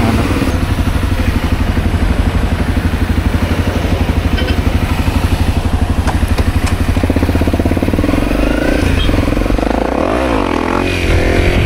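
Honda CRF250L's single-cylinder four-stroke engine running at low revs with an even, fast pulsing beat, then revving up and down in the last few seconds.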